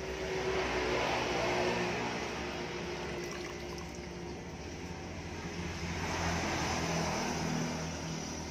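Motor vehicles passing on a road, the engine hum and road noise swelling twice.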